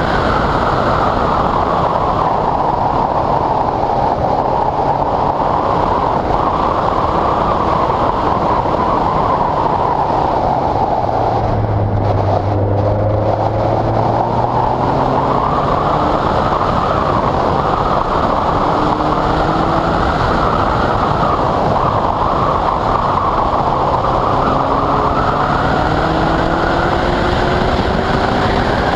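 Westfield sports car at speed on a wet track, heard onboard: a loud rushing of wind and tyre spray over the engine. About twelve seconds in the rush eases and a low engine note shows as the car slows, then the engine revs climb again as it accelerates.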